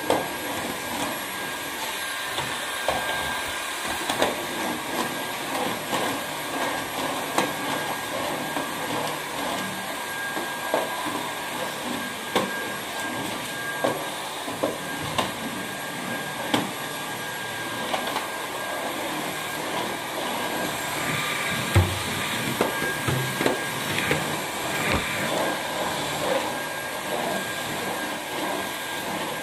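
Stick vacuum cleaner running steadily with a thin high whine, dotted with frequent light knocks and clicks as it is pushed over a tiled floor.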